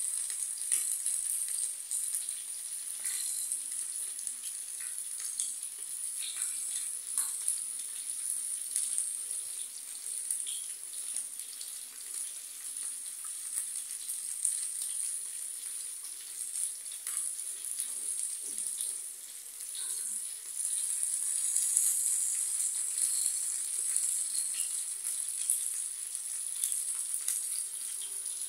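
Beef steaks sizzling in hot fat on a flat pan: a steady high hiss dotted with constant spitting crackles. It dips briefly about two-thirds of the way through, then sizzles louder.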